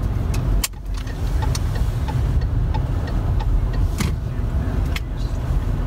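Low rumble of a slow-moving car's engine and road noise heard inside the cabin, with light clicks about twice a second.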